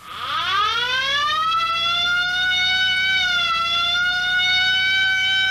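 Ambulance siren winding up from a low pitch to a steady high wail, dipping slightly in pitch about three and a half seconds in.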